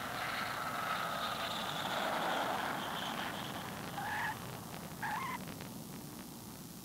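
B-52 bomber landing: its eight jet engines give a steady whine over a rushing noise, and the main-gear tyres chirp twice on touchdown, about four and five seconds in. The engine noise then slowly fades.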